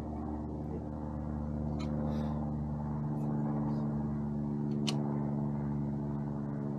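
A steady machine hum with a few faint light clicks.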